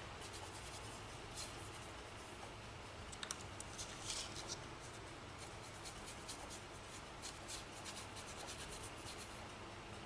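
Faint scratchy strokes of a paintbrush on a textured plaster art board, with a few small clicks.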